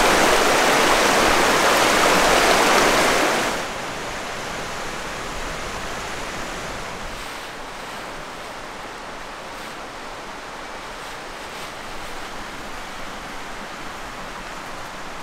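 River water rushing over rocks in shallow rapids, loud for about the first three and a half seconds, then dropping suddenly to a quieter, steady rush of flowing water.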